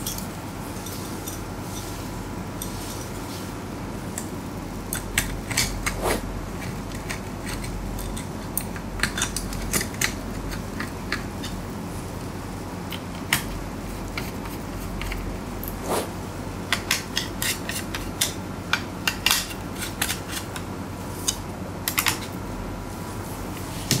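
Scattered light metallic clicks and taps as an aluminium M.2 heatsink cover is set onto a motherboard and screwed down with a screwdriver, more frequent in the second half, over a steady background noise.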